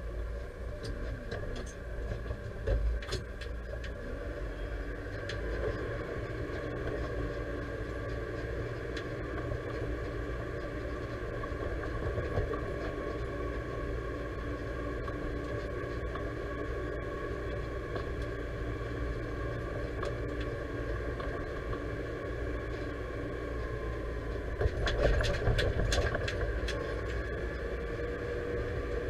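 Deutz-Fahr 5100G tractor engine running steadily under way, heard from inside the cab. A louder burst of knocks and rattles comes near the end as the tractor goes over rough track.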